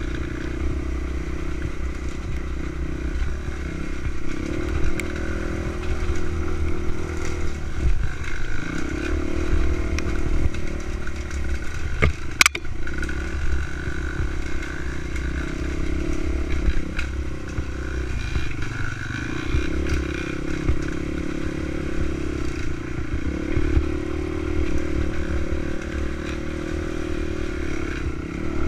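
Dirt bike engine running along a trail, its note rising and falling every few seconds as the throttle opens and closes. A sharp knock about twelve seconds in.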